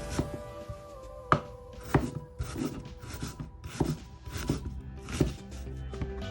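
Knife chopping on a cutting board, separate strokes roughly one to two a second, over background music.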